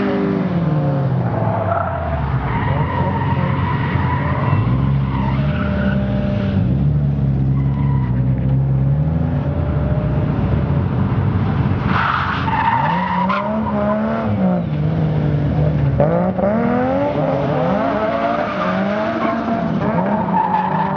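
Nissan drift car's engine revving up and down over and over as the car slides, with tyres skidding and squealing.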